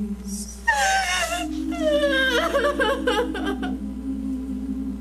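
A woman sobbing in a high, wavering wail that breaks and glides downward, starting just under a second in and dying away near four seconds, over soft sustained music chords.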